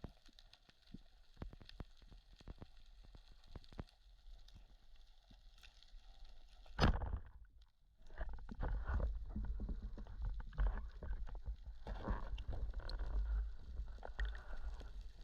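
Underwater sound picked up by a camera in its housing during a freedive: scattered sharp clicks, one loud knock about seven seconds in, then a low rumbling slosh of moving water with more clicks.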